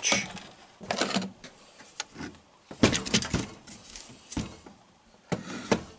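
Handling noise at a workbench: a scattered series of short knocks and light rattles, with a cluster about three seconds in and two more near the end.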